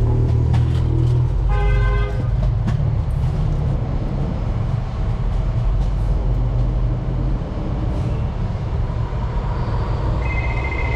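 City street traffic with a heavy low rumble of wind and passing vehicles. About one and a half seconds in, a car horn gives one short toot, and near the end there is a brief high steady beep.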